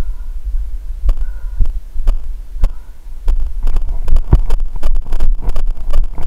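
Low rumble and thumping from a body-worn camera jolted by the wearer's footsteps, with wind on its microphone. The knocks come faster and louder from about three seconds in, as the wearer breaks into a run on the dirt track.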